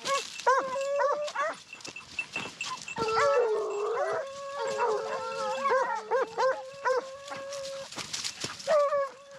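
A pack of Porcelaine scent hounds giving tongue: overlapping short yelps and bays, with one long drawn-out howl held from about three seconds in to about eight seconds. The hounds are baying on a wild boar's scent line.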